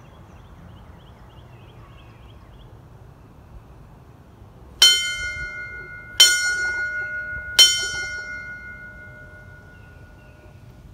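A single bell struck three times, about a second and a half apart, each strike ringing on and slowly fading.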